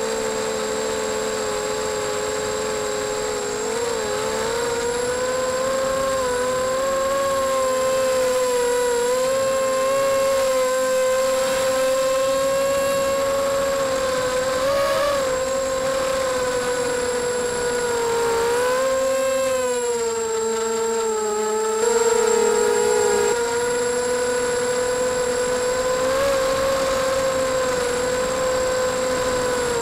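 Brushless motors and propellers of a 250-size racing quadcopter whining steadily, the pitch wavering up and down with the throttle and dipping several times. Heard up close from the camera mounted on the quadcopter.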